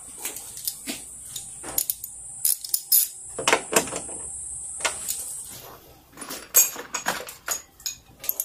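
Scattered clicks, knocks and metallic clinks of hands and tools unfastening the plastic coolant reservoir and shifting it aside in a car's engine bay.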